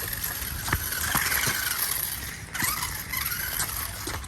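Small electric motor of a toy RC car whining as it is throttled in spurts, the pitch rising and falling three or four times, with a few sharp clicks from the car as it runs.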